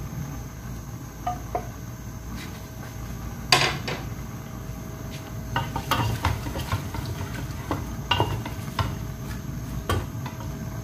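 Wooden spatula scraping sliced onions off a plate and knocking against a metal pressure-cooker pot, then stirring the onions in the pot: scattered clinks and knocks, the loudest about three and a half seconds in.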